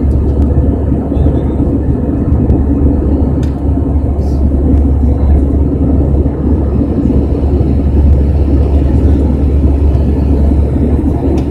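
Cabin noise of an Airbus A319 climbing after takeoff, heard inside the cabin beside the wing engine: a loud, steady, deep rumble of the jet engine and airflow.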